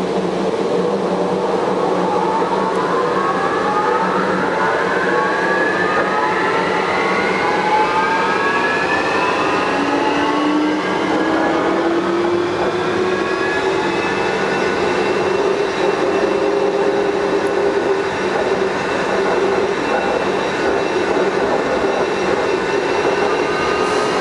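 Bombardier Wenhu line metro train running, its motor whine rising in pitch for the first dozen or so seconds as it speeds up, then holding steady over a constant running rumble. The uploader says this train has developed an abnormal noise while running.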